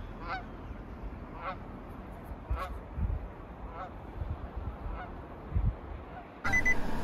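A goose honking in flight: about five short calls a little over a second apart, over a low rumble of wind on the microphone. Near the end it cuts abruptly to a Nissan's key-in-ignition warning chime beeping.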